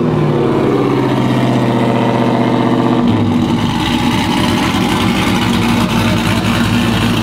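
A pickup's 4.8-litre V8 idles with a choppy lope from a custom camshaft, breathing through a Corsa exhaust. The engine comes down from a rev into the idle at the very start, then holds steady.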